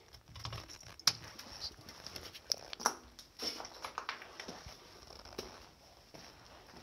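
Footsteps crunching and scraping over debris on a basement floor, with irregular sharp clicks and knocks, the loudest about a second in and near three seconds in.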